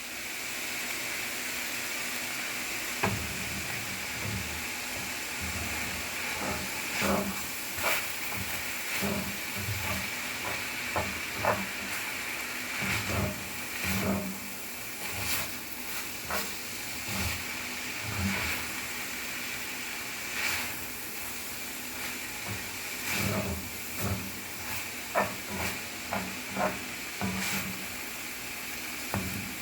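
Ground beef sizzling in a frying pan, with a steady hiss and irregular knocks and scrapes as a utensil stirs the meat against the pan.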